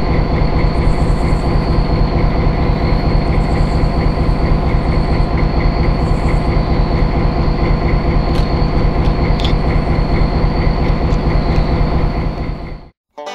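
EMD SW8 switcher locomotives' diesel engines running, a steady deep rumble with a thin high whine over it and a few sharp clicks, cutting off abruptly near the end.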